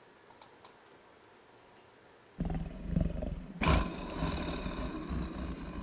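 Monster breathing sound effect: rough, deep growling breaths that start about two and a half seconds in, after near silence, with a louder breath about a second later.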